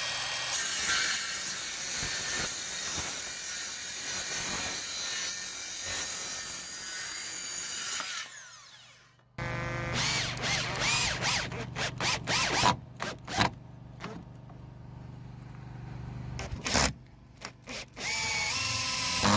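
Circular saw running through 4x2 softwood for about the first eight seconds, then dying away. After a short gap, a drill drives long wood screws into the timber frame in a series of short trigger bursts, with a longer run near the end.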